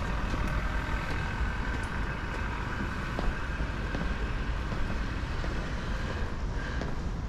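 Footsteps going down stairs in a brick stairwell, a few knocks over a steady low rumble. A faint steady whistle-like tone runs through and stops near the end.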